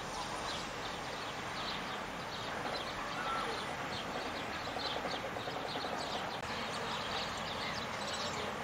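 Faint, steady outdoor background noise with many short, irregular high-pitched ticks scattered through it.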